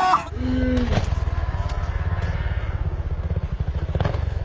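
Dirt bike engines running on a motocross track: a steady low rumble with a fast, even pulsing. There is a short pitched sound that glides down, about half a second in.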